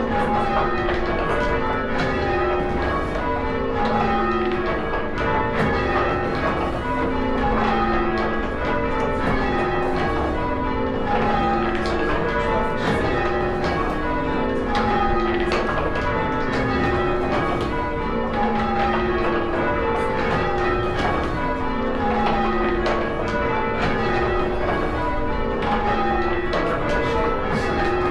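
Church tower bells change ringing: the bells strike one after another in a steady, evenly paced stream, running down through their notes in rows, with the order shifting from row to row.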